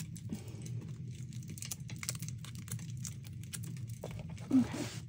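Light, irregular clicks and taps of a scrapbook page being handled and shifted in a 12x12 album while it is lined up to centre, over a steady low hum. A short vocal "mm" comes about four and a half seconds in.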